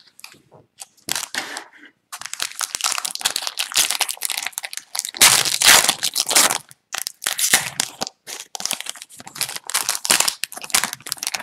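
Foil wrapper of an Upper Deck hockey card pack being torn open and crinkled by hand: a run of crackling, rustling bursts, loudest about halfway through.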